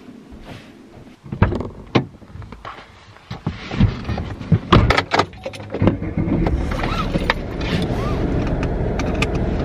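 Clicks and knocks in a car cabin as the driver settles in and pulls the seatbelt across. From about six seconds in the car's engine runs with a steady low rumble.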